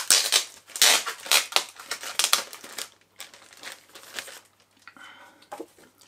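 Packaging crinkling and rustling as items are unpacked from a subscription box, busiest over the first three seconds and then dying down to scattered rustles.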